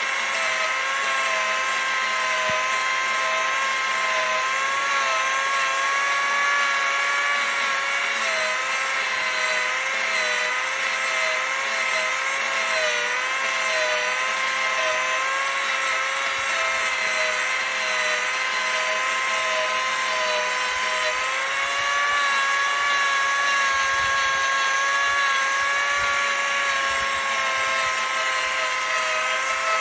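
Angle grinder with a carving disc running steadily against a wooden root, shaping it. Its whine wavers and dips slightly in pitch now and then as the disc bears into the wood.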